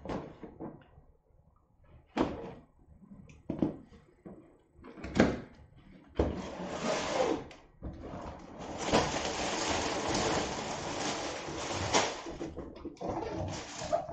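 A cardboard box being opened, with a few sharp knocks and scrapes of cardboard in the first seconds. Then a long stretch of plastic rustling and crinkling as plastic bags of building-brick parts are lifted out and set down.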